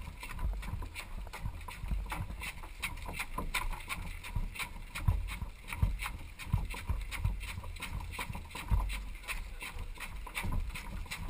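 Quick rhythmic footsteps, about three a second, of paddlers jogging along a portage trail with a canoe carried overhead. Irregular low knocks come from the hull jostling on their shoulders.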